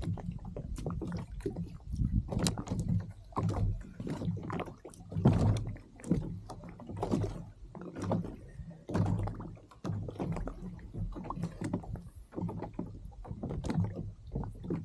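Kayak on open water: water slapping and sloshing against the hull, with irregular knocks and clicks throughout.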